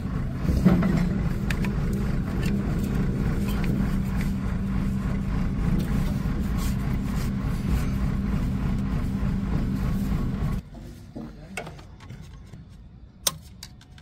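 An engine running steadily at a constant speed, then cutting off abruptly about ten and a half seconds in. A few light clicks follow near the end.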